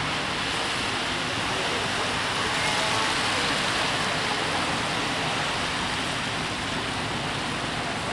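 Steady rain on a city street, with traffic hissing past on the wet road; a bus passes close by around the middle.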